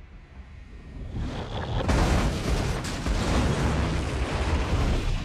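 Film sound effects of a runaway bullet train crashing: a loud, heavy rumbling crash that swells in about a second in and keeps going at full force.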